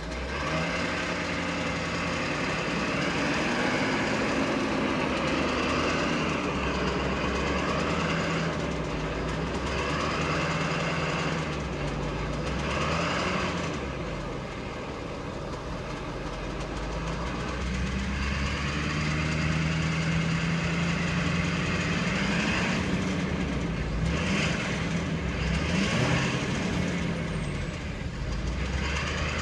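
2014 Ford F-350's 6.7-litre Power Stroke V8 turbo-diesel running at idle, its speed drifting slightly up and down, with a ticking from the engine that, as the owner puts it, is 'supposed to be normal'.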